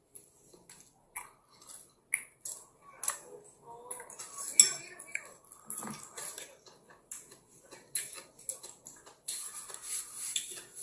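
Eating utensils clicking and tapping against plates and dishes, an irregular string of sharp clinks, the loudest about four and a half seconds in and thicker near the end.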